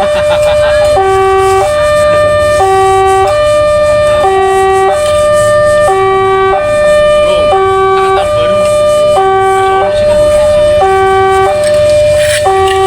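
Railway level-crossing warning siren, electronic and hoarse-sounding, steadily alternating a low tone of about half a second with a higher tone of about a second, in a hi-lo cycle roughly every 1.6 s.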